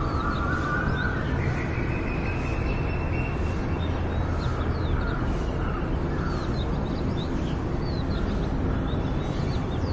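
Outdoor ambience: a steady low rumble with short bird chirps throughout. A rising whine fades out a few seconds in, and a faint high hiss pulses about once a second.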